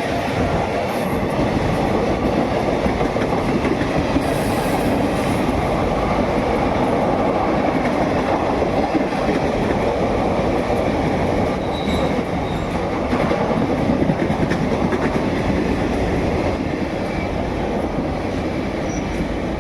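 Passenger express train's coaches rolling past, a loud steady rumble with wheels clattering over the rail joints.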